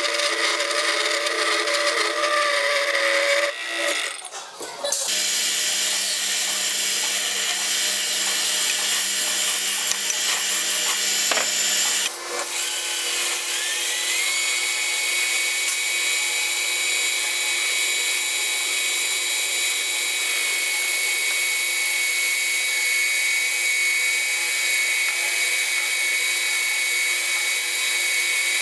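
Machine-shop cutting noise: first a milling machine cutting a steel block, then, after edits about 4 and 12 seconds in, a metal lathe turning a brass bar for a steam-engine cylinder. Soon after the second change a whine rises and then holds steady as the lathe runs.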